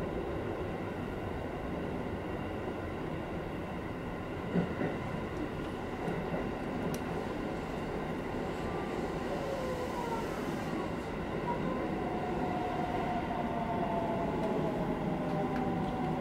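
Electric commuter train heard from inside the front of the car as it slows into a station: steady running noise from wheels and motors, a single knock about four and a half seconds in, and from about ten seconds in a motor whine falling in pitch as it brakes.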